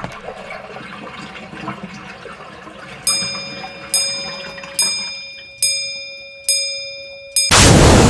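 Sound effects: a crackling, clinking texture, then six evenly spaced chime-like strikes, each ringing out and dying away. Near the end comes a sudden, loud burst of rushing noise like static.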